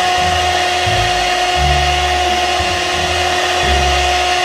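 Electric hand mixer running steadily with a constant motor whine, its beaters whipping a liquid cream and condensed-milk mixture in a plastic bowl. An uneven low rumble shifts underneath as the beaters move around the bowl.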